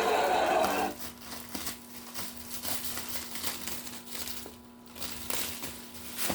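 Packaging crinkling and rustling in irregular short bursts as it is handled, over a faint steady hum.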